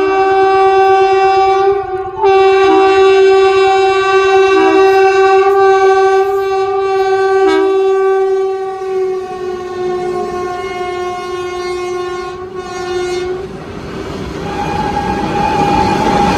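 WAG-9 electric locomotive's multi-tone horn sounding a shrill, loud blast. It breaks off briefly about two seconds in, then is held again for about eleven seconds before cutting off. Afterwards the rolling clatter of the passing train's wheels on the rails remains.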